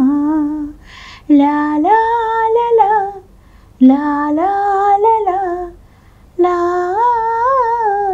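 A woman singing unaccompanied in four long, held phrases, with a quick breath taken between the first two.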